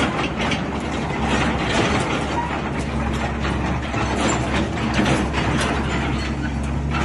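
Sany excavator's diesel engine running steadily as the machine swings its upper structure, with irregular clicks and mechanical clatter over the engine hum.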